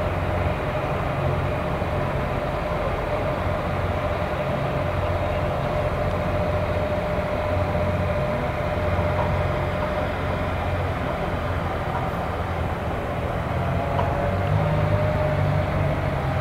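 Boeing 767 jet engines running: a steady roar with a whining tone over a low rumble. The rumble grows a little louder near the end.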